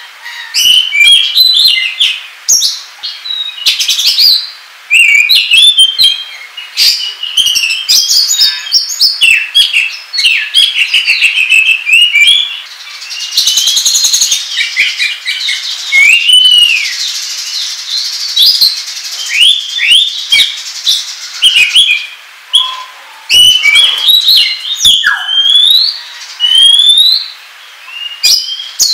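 Oriental magpie-robin (kacer) singing loudly: a fast, varied run of whistles, slurred notes and chirps in phrases broken by short pauses. This is the excited 'ngobra' song played to lure and provoke other magpie-robins.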